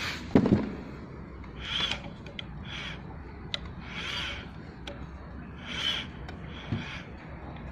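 Motorised butterfly valve's metal disc rubbing against its rubber seat as the electric actuator turns it, giving short squeaks that recur every second or two. A handling knock about half a second in.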